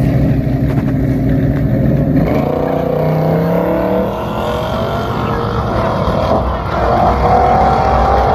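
Drag-racing cars' engines at full throttle accelerating down the strip, the engine note climbing in pitch again and again as they pull through the gears.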